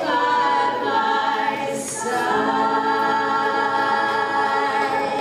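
Worship song sung by voices, mostly long held notes, with a short break about two seconds in.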